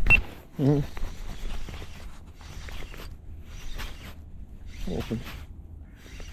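Spinning reel cranked in short bursts, a few turns at a time with pauses between, while the rod is bent under load.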